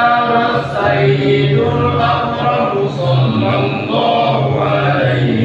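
Men's voices chanting an Arabic Mawlid recitation in praise of the Prophet Muhammad, in long, held melodic notes.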